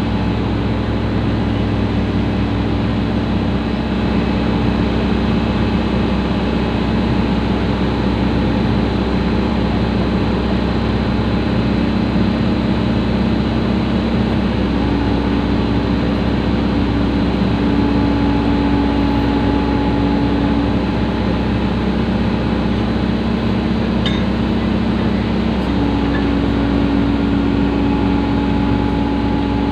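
Excavator's diesel engine running steadily under hydraulic load, its tone shifting a few times as the machine works.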